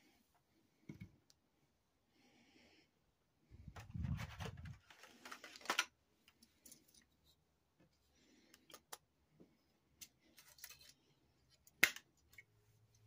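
Plastic packaging and a paper insert being handled: scattered light clicks and rustles. There is a soft low thump about four seconds in, a brief crinkle just after it, and a sharp click near the end.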